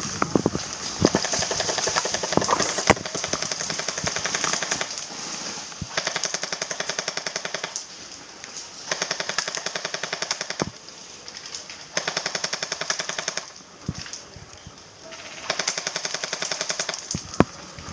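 Airsoft guns firing in rapid full-auto bursts of about one to three seconds each, five bursts in all with short pauses between.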